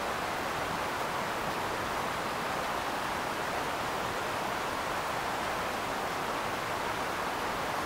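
Steady, even hiss from a microphone lowered down a borehole, with no knocks, taps or other distinct sounds.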